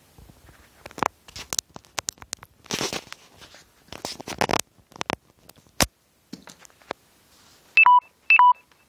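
Scattered clicks, scrapes and rustling, then two loud, short electronic beeps about half a second apart near the end, each a high note dropping to a lower one.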